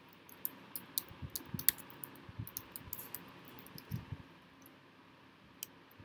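Typing on a computer keyboard: a quick, irregular run of keystrokes for about four seconds, then a pause and one more key press near the end.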